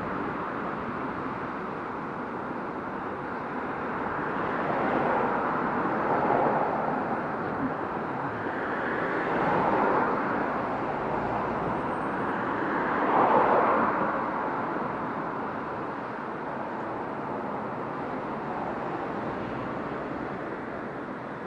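Road traffic going by: a steady noise with several vehicles swelling past one after another, the loudest near the middle.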